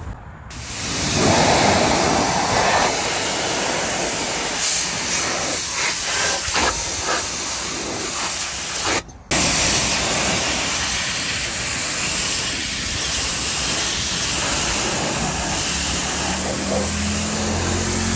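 Pressure washer jet spraying a truck's metal running board: a loud, steady hiss that starts about half a second in and drops out for a moment about nine seconds in. A low hum comes in near the end.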